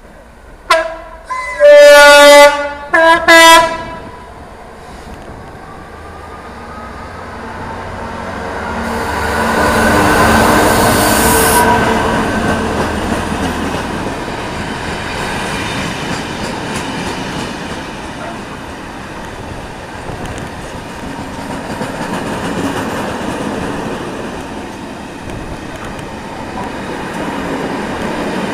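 Class 66 diesel locomotive's horn: a short blast, a longer one, then two quick ones, very loud, with something clogging the horn according to the uploader. The locomotive's two-stroke EMD V12 passes at its loudest about ten seconds in. A long rake of stone wagons follows, rolling by with wheel clatter.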